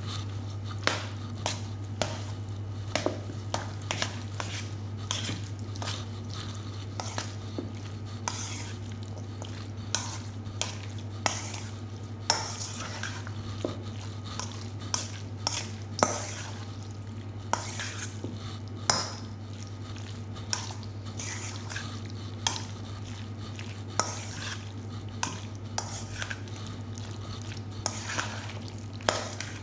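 Metal spoon stirring a thick mayonnaise-dressed chopped salad in a stainless steel mixing bowl, with irregular clinks and scrapes of spoon against bowl. A steady low hum runs underneath.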